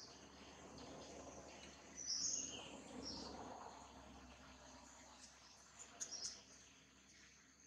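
Forest ambience with insects and short high chirps, loudest about two seconds in and again around six seconds in.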